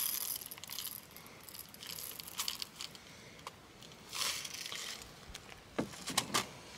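Lead shot rattling in a clear plastic cup and pouring into a metal shot measure in short bursts while a 90-grain charge is measured, with a few sharp clicks near the end.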